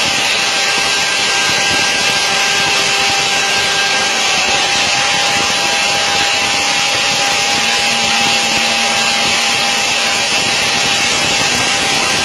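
Aircraft noise: a loud, steady rush with a steady whine running through it.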